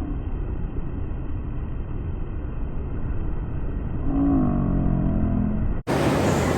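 Wind rumbling on the microphone over the wash of sea surf on a beach, with a brief voice about four seconds in. Near the end the sound cuts abruptly to a brighter, hissing wash of surf.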